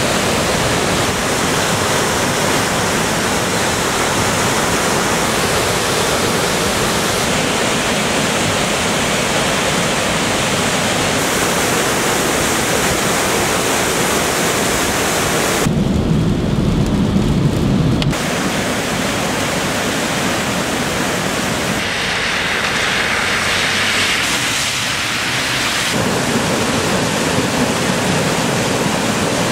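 Floodwater rushing over a dam and spillway: a loud, steady rush of churning white water. The sound changes abruptly several times as shots are cut together, with a brief stretch of deeper rumble about halfway through.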